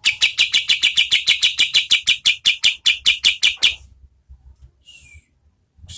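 Kapas tembak songbird giving its rapid-fire 'tembak' call: a fast, even volley of about twenty sharp, loud notes, five or six a second, that stops short after nearly four seconds. It is followed by a single short falling call near the end.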